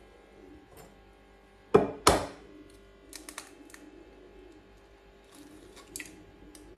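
An egg knocked twice against the rim of a drinking glass to crack it: two sharp knocks close together about two seconds in, then a few small clicks as the shell is pulled apart.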